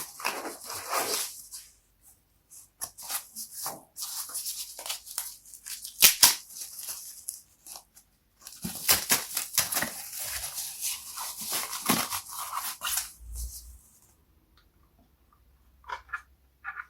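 Packaging being handled during unboxing: irregular bursts of crinkling, rustling and tearing of plastic and cardboard, with a low thud a little before the end and a few light clicks near the end.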